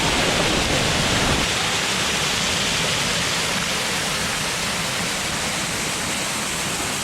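Water rushing steadily, a continuous hiss like a small waterfall or fast stream.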